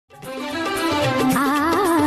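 Music: a wavering, vibrato melody over a low, pulsing beat, fading in quickly at the start.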